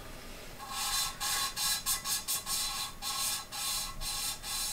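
Hand-lapping a valve into a Ford Duratec cylinder head: the valve twisted back and forth on its seat with gritty grey valve grinding compound, rasping about three strokes a second from about half a second in. The rasp is the abrasive grit being crushed as it grinds corrosion pitting out of the valve seat.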